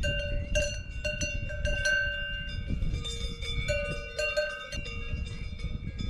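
Cowbell on a grazing cow's collar clanking irregularly as the cow moves its head, many strikes in a row, each ringing on with bright tones.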